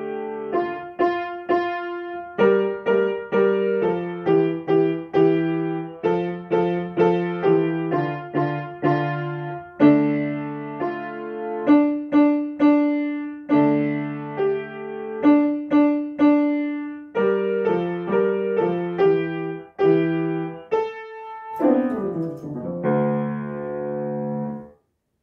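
Grand piano being played: a melody of separate notes over low chords. Near the end a quick downward run leads into a final held chord that is cut off sharply.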